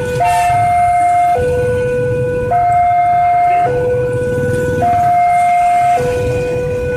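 Railway level-crossing alarm sounding a two-tone hi-lo siren, switching between a higher and a lower tone a little over once a second, with a low rumble underneath.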